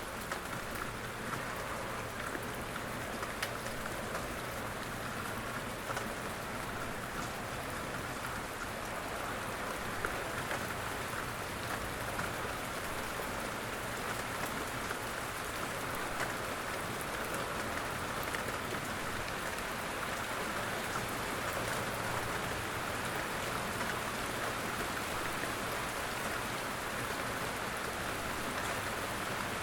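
Steady rain falling, with scattered small drop ticks over an even hiss.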